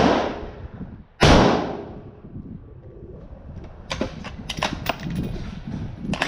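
Two rifle shots, one right at the start and one about a second in, each fading over about half a second. Then a quick run of sharp metallic clicks between about 4 and 5 seconds in, and a few more near the end, as the .223 Black Creek Labs Bison MRX's action is worked by hand.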